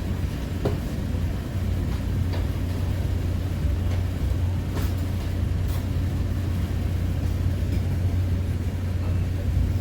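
Steady low rumble of a moving vehicle, with a few faint clicks and knocks.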